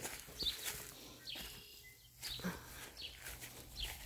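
Footsteps swishing through short grass, a step every second or so, with faint bird chirps in the background.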